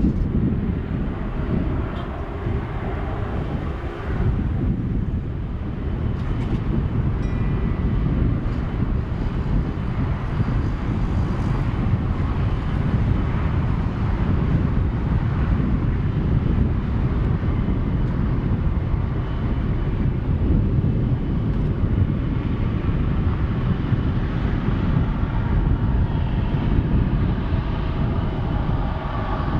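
Jet airliner engines of an Airbus A330-243F freighter, a loud steady roar that does not let up, with a faint higher whine coming in near the end.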